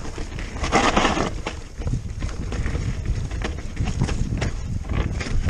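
Electric mountain bike (Giant Stance E+) ridden fast over rough dirt singletrack: a steady rumble of wind on the microphone and tyres on the ground, with frequent clicks and rattles from the bike over bumps. A brief louder rushing hiss comes about a second in.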